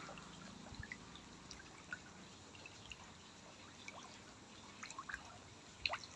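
Faint bubbling and dripping of water from the aerator in a tarpaulin fish-fry pond, with small scattered plops.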